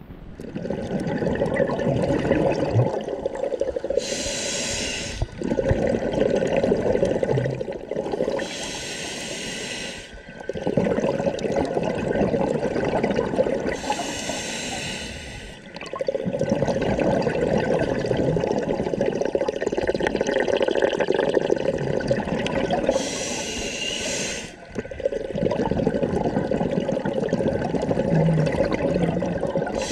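Scuba diver breathing through a regulator, heard underwater: four short hissing inhalations, each a second or two long, with another starting near the end, separated by longer stretches of bubbling exhaled air.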